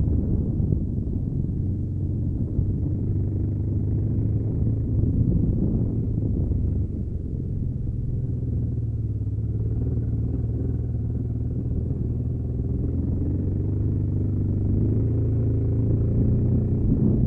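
1993 Honda Africa Twin XRV750's V-twin engine running steadily while the motorcycle rides along a gravel road. It is a dull, even low rumble mixed with road noise.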